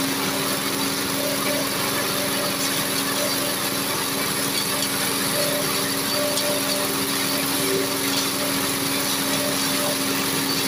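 Single-cylinder horizontal diesel engine running steadily, driving a forage chopper as leafy stalks are fed through it.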